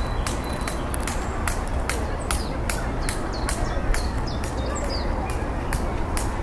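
Walnuts in the shell knocked together by hand, a steady run of sharp clicks about three a second, tapping to lure squirrels. Birds chirp faintly now and then over a low outdoor rumble.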